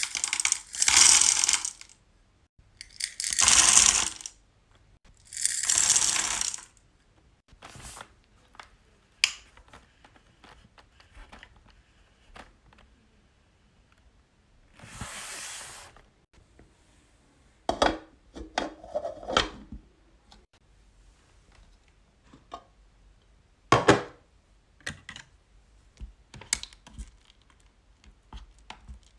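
Hard wax beads poured into the metal pot of an electric wax warmer, rattling and clinking in three pours in the first seven seconds. Scattered light clicks and taps follow, including a wooden stick stirring the beads near the end.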